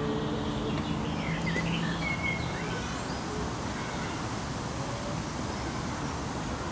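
Outdoor park ambience: a steady low background rumble with a few short bird chirps about a second and a half to two and a half seconds in. A faint low held tone fades out about three seconds in.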